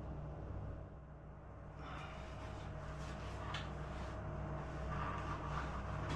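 Faint rustling and handling noises, with a few soft clicks, as a soundbar and its packaging are handled during unboxing. A steady low hum runs underneath.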